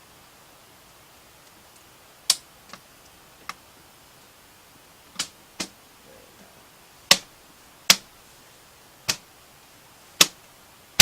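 About ten sharp clicks and snaps, irregularly spaced and starting about two seconds in, as the plastic front panel of a PC case is pressed back into its clips.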